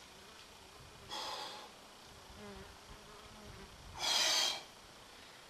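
A rock climber's two sharp, forceful breaths out as he pulls through hard moves, a softer one about a second in and a louder one about four seconds in.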